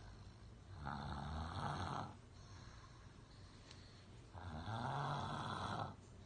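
A person snoring: two long snores about three and a half seconds apart, each lasting a second or more, with a low buzzing pitch under the breath noise.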